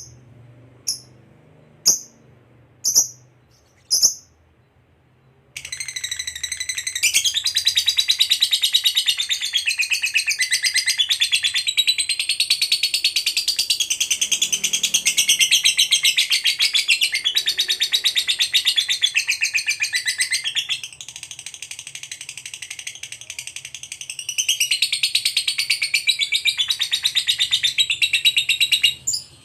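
Lovebird song: a few single sharp chirps about a second apart, then a long, fast chattering trill (the 'ngekek') that runs on without a break. About two-thirds of the way in the trill goes quieter for a few seconds, then comes back strong and stops just before the end.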